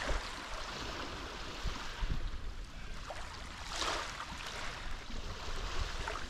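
Small Mediterranean sea waves washing and lapping on the shore, a steady hiss of moving water with one louder wash about four seconds in.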